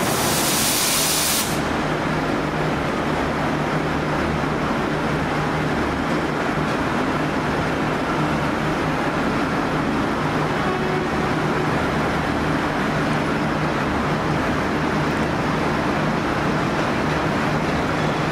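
V/Line N Class diesel-electric locomotive idling, a steady low engine drone with a held hum. A short burst of air hiss sounds in the first second and a half.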